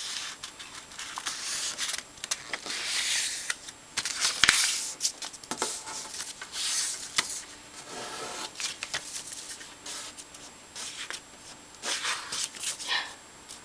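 A sheet of origami paper being folded and pressed flat by hand: irregular rustling and rubbing of paper against paper and the table, with a few sharp clicks.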